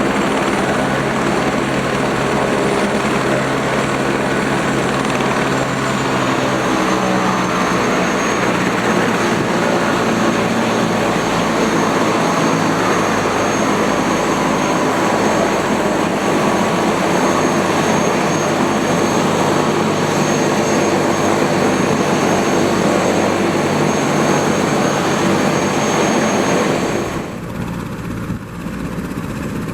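Eurocopter AS 350 B3 helicopter running close by: the single turboshaft engine's high steady whine over loud rotor and engine noise. The whine dips slightly in pitch about seven seconds in, and the sound drops off suddenly, losing its high end, near the end.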